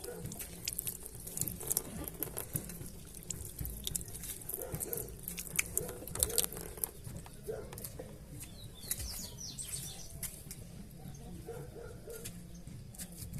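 Irregular light patter of dripping rainwater, with scattered clicks and a few faint high bird chirps about nine seconds in.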